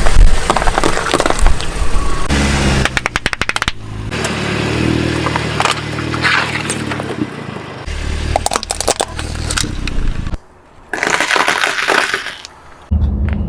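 Objects cracking and crunching as they are crushed under a car's tyres, in several short edited clips, with a fast run of sharp cracks about three seconds in.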